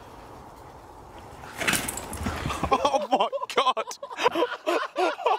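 A brief rush of noise about one and a half seconds in, then from about three seconds in a person's wordless voice in short, pitch-swinging outbursts.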